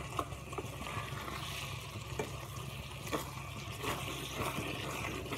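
Spinach and mushrooms sizzling softly in a nonstick pan as a wooden spatula stirs them, with a few light scrapes and taps of the spatula against the pan. The mix is being fried down to drive off its remaining water.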